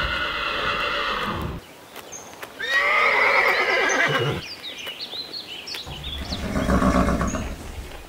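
Horses neighing: a whinny that ends about a second and a half in, a second, shaky whinny around the middle, then a lower, shorter call near the end.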